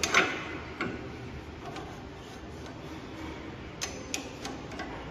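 Metal knocks and clicks as a portable line boring machine's bearing support and feed assembly are handled and fitted on the steel boring bar. The loudest is a knock right at the start, with another just under a second in and a few sharp clicks near the end.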